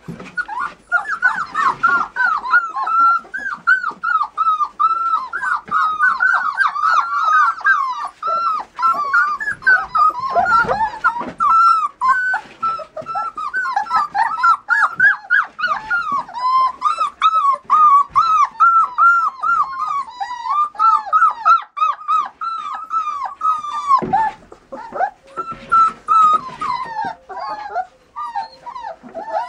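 Border collie puppies whining and yipping in a rapid, nearly continuous string of short high-pitched cries, with a brief lull near the end before the cries start again.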